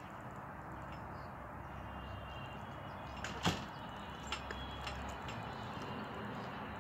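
Steady outdoor background noise, with one sharp knock about halfway through followed by two fainter clicks.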